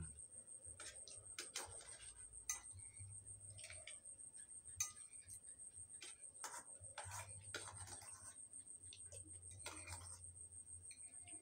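Faint clinks and scrapes of spoons against a metal bowl and a plate as people eat, a few sharper clinks among softer scraping.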